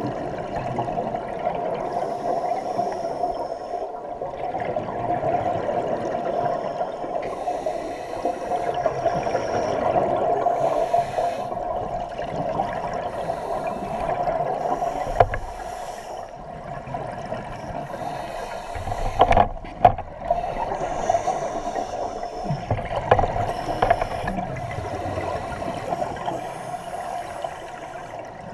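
Muffled underwater sound heard through a camera's waterproof housing: scuba divers' exhaled bubbles rushing and bubbling from their regulators in repeated bursts every few seconds over a steady rush. A few sharp knocks stand out about two-thirds of the way through.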